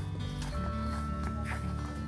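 Background music with held tones, a bass line and light percussion.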